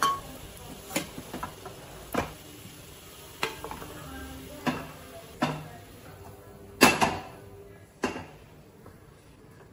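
Wooden spatula stirring and scraping chicken fry in a nonstick kadai, knocking against the pan about once a second. The loudest pair of knocks comes about seven seconds in, and it goes quieter after one last knock a second later.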